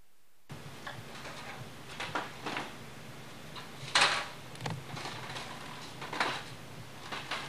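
Near silence for the first half second, then about eight short wooden knocks and clacks at irregular intervals over a steady background hum, the kind made by lumber being handled or struck on a timber house frame under construction. The loudest knock comes about four seconds in.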